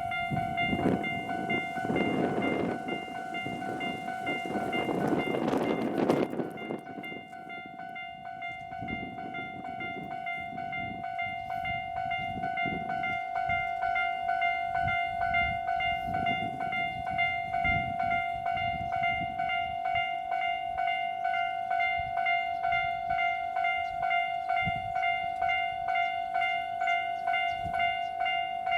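Electronic level-crossing alarm of Tobu Isesaki Line crossing No. 254 ringing a fast, steady repeating ding, one side of the crossing slightly higher-pitched than the other. A train runs past for the first six seconds or so, then drops away suddenly. Gusts of wind buffet the microphone throughout.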